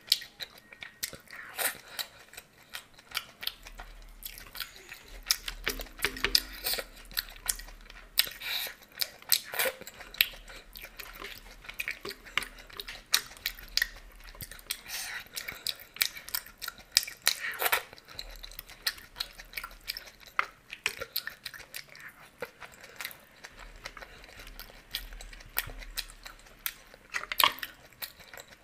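Close-miked mouth sounds of eating ghugni, a spiced yellow pea curry, by hand: wet chewing and smacking in a quick, irregular run of short sharp clicks.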